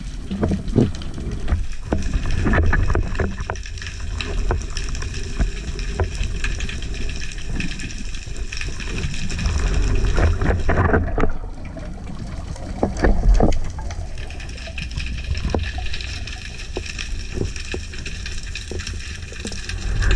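Underwater sound through a camera housing as a spearfisherman dives and swims: water rushing past in a steady low rumble, with many scattered clicks and crackles.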